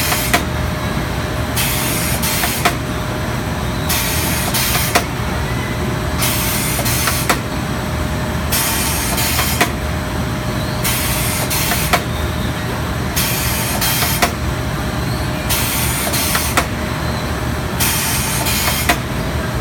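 Steen ST 828 drumstick deboning machine running: a steady mechanical hum, broken by a hiss about every two and a half seconds, each lasting about a second, with sharp clacks between.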